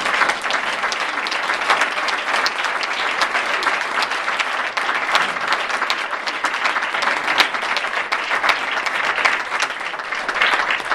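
Audience applauding: a room full of people clapping steadily for about eleven seconds, cutting off quickly at the end.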